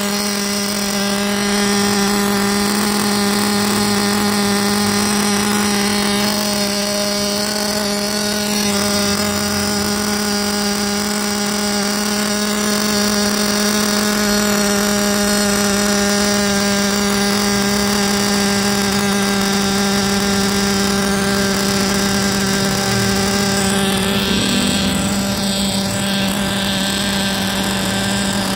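Small nitro glow engine of a 1/8-scale RC buggy running steadily on the stand at a fast, even, high-pitched idle while being broken in, its note shifting briefly near the end.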